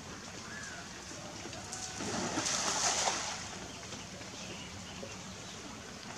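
Outdoor pond-side ambience with faint bird chirps, and a brief hissing rush of noise about two seconds in that lasts about a second.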